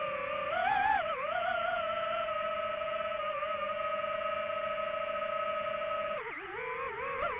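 DJI FPV drone's motors and propellers whining as one steady tone that shifts with throttle. The pitch rises briefly about a second in, holds level, then dips and wavers near the end.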